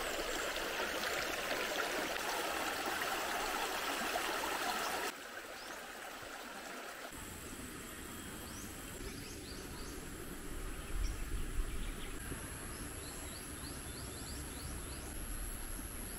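A flood-swollen, muddy creek rushes over rocks in a steady wash of water, which cuts off abruptly about five seconds in. After that comes quieter outdoor ambience with faint, repeated short high chirps.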